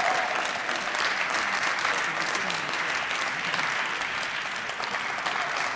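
Audience applauding, many hands clapping steadily, easing off slightly toward the end.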